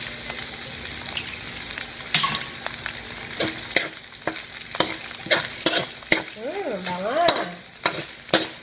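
Ground pork, cabbage and freshly added egg sizzling in a hot oiled pan while being stirred, a spatula scraping and knocking against the pan. The knocks come more often from about three seconds in.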